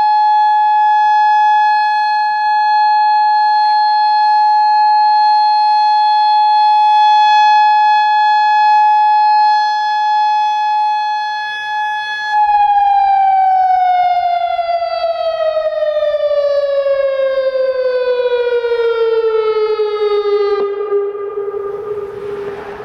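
Federal Signal Modulator outdoor warning siren sounding a loud, steady single tone, then winding down about halfway through, its pitch gliding smoothly lower and settling into a low tone that fades near the end.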